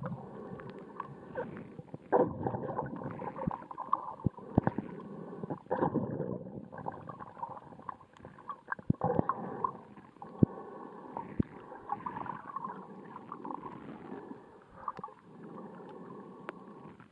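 Muffled underwater sound of moving water and surge on a shallow reef, heard from a submerged camera, with many scattered sharp clicks and a few louder swells.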